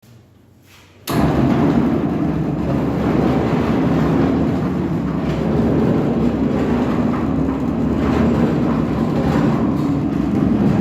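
Ready-mix concrete mixer truck running: a loud, steady mechanical rumble that starts abruptly about a second in.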